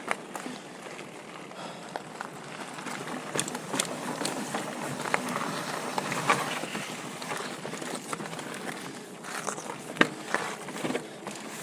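Pivot Switchblade full-suspension mountain bike rolling over rocky singletrack: steady tyre and trail noise with scattered sharp knocks and rattles from the bike as it hits rocks.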